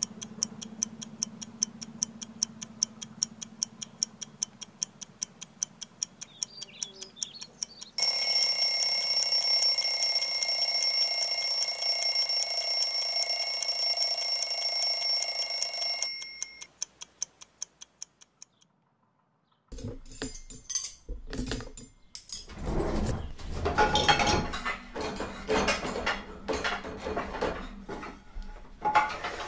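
Clock ticking about twice a second, then an alarm clock ringing loud and steady for about eight seconds, with the ticking going on underneath and fading out after it stops. After a short silence comes a run of irregular knocks and clatter.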